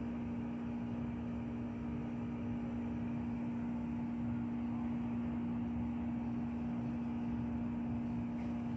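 Steady low hum with a constant pitch over a faint even rumble, unchanging throughout.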